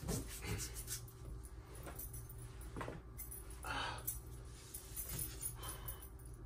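Quiet room tone with a steady low hum, broken by a few faint rustles and shuffles of a person shifting on a bed.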